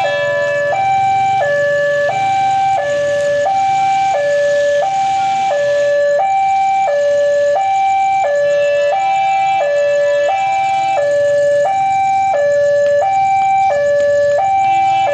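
Railway level-crossing warning alarm sounding a steady electronic two-tone hi-lo signal, the pitch switching about every three-quarters of a second. It signals that the crossing is closed to road traffic.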